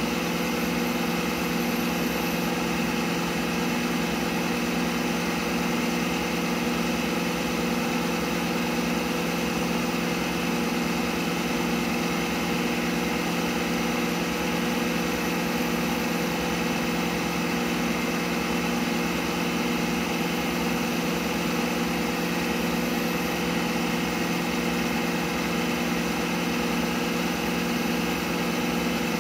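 CNC milling machine running steadily with its spindle turning the workpiece: a continuous machine hum with several steady whining tones and no pauses or changes.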